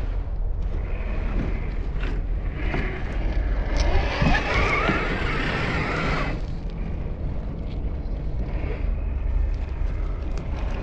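Radio-controlled scale crawler trucks driving in sand, their electric motors and gears whining with a wavering pitch that swells between about three and six seconds in, over a steady low rumble.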